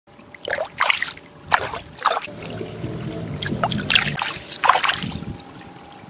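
Koi thrashing in shallow running water, making a string of sharp splashes over the trickle of the flow, with a low hum underneath midway.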